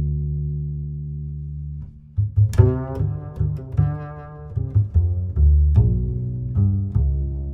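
Instrumental background music: a low note held and fading for about two seconds, then a string of short notes.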